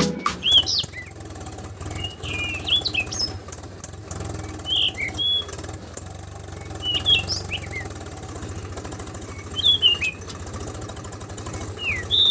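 Small electric motor of a DIY mini tractor running with a steady low hum and fast rattle, while birds chirp in short bursts every couple of seconds.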